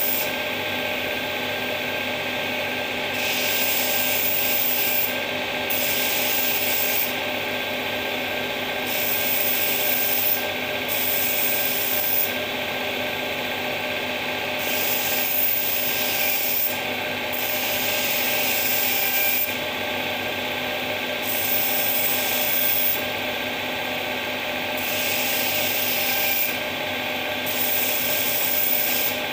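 Electric knife-sharpening machine running steadily with a constant motor hum. Over it come about ten grinding passes at the wheel, each a hissing rasp lasting a second or two.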